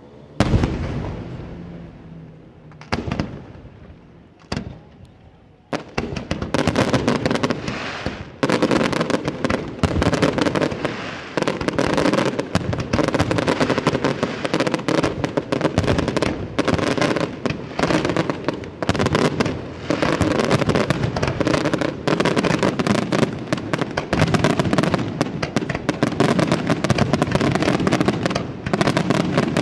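Aerial fireworks shells bursting. There is a sharp bang about half a second in, then a few separate bangs, and from about six seconds in a dense, rapid barrage of bangs and crackling that keeps going.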